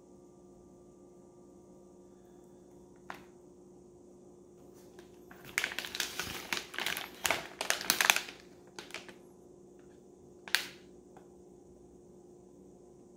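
Plastic snack bag crinkling as hands handle it and turn it over. There is a single light click, then a few seconds of dense crackling around the middle, a couple more crackles, and one sharp crackle near the end, over a faint steady hum.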